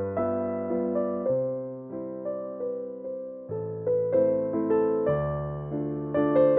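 Background music: a slow, gentle piano piece, single notes and chords struck and left to ring.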